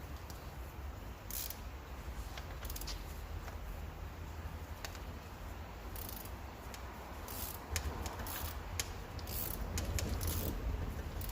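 Scattered light metallic clicks and brief scrapes of hand tools and bolts being worked on a cylinder head, over a steady low hum.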